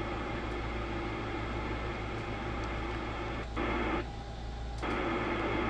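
Steady receiver hiss and static from the Icom IC-746Pro's speaker as it is stepped through 2-meter memory channels, the upper part of the hiss cutting out briefly twice near the end, over a constant low hum.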